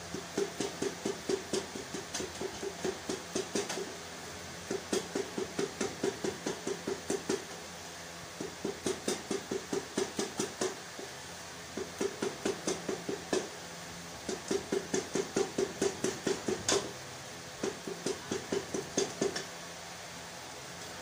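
Quick, even strokes of a kitchen utensil, about four to five a second, in six bursts of a few seconds each with short pauses between.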